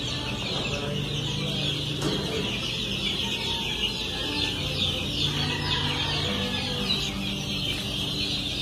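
A flock of young gamefowl chicks peeping continuously, a dense chorus of many short high cheeps overlapping, over a low steady hum.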